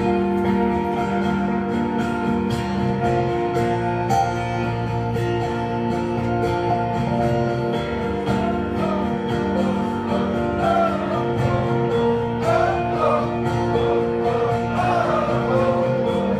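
Acoustic guitars playing the slow, sustained chords of a song's intro live. About ten seconds in, a higher wavering melody line joins over the chords.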